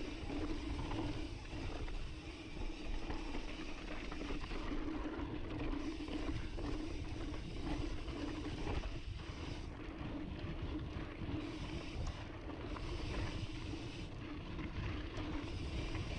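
Intense Sniper cross-country mountain bike rolling fast down a dry, dusty dirt singletrack: a steady rush of tyre and wind noise with a constant low hum, without breaks.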